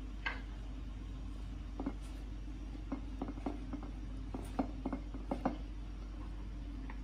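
Light clicks and taps of a wooden spoon against a glass plate as ketchup is spread over flatbread: one early, then about a dozen in an irregular cluster through the middle, over a steady low hum.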